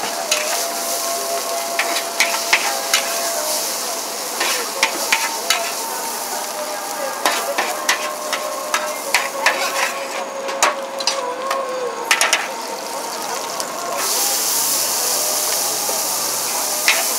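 A metal spatula scraping and clanking against a large wok as flat rice noodles are stir-fried, with a steady sizzle of frying underneath. About fourteen seconds in, the sizzling gets louder and hissier.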